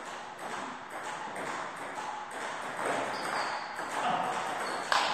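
Table tennis rally: a ping-pong ball clicking off the bats and bouncing on the table in a quick back-and-forth of short knocks, with one louder, sharper knock near the end.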